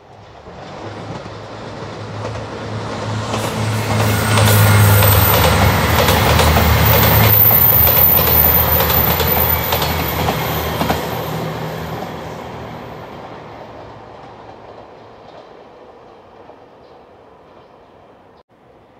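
JR Shikoku 2700 series diesel limited express passing at speed, with its diesel engines running and wheels clicking over the rail joints. It builds from the start, is loudest about 4 to 11 seconds in, then fades away.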